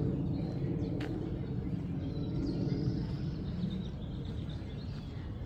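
Outdoor park ambience: a steady low rumble with faint bird chirps in the middle and a single sharp click about a second in.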